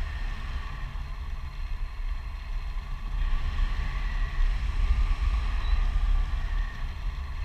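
Wind buffeting a handheld action camera's microphone during a tandem parachute descent under an open canopy: a steady low rumble that swells and fades.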